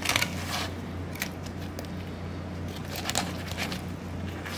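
SOG fillet knife slicing through a long-tail sea bass along its backbone and rib cage: short, scattered scraping and crackling strokes as the blade works against the bones. A steady low hum runs underneath.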